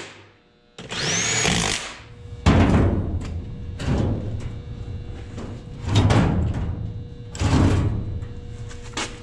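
Cordless drill spinning up briefly with a rising whine as it drives a screw, then a series of heavy thumps and clunks as a seat is set and shifted onto its floor mounts in a bare metal truck cab.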